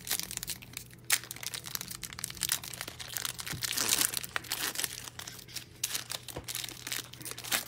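Sports-card pack wrapper crinkling and tearing as it is worked open by hand, an irregular run of crackles and rustles.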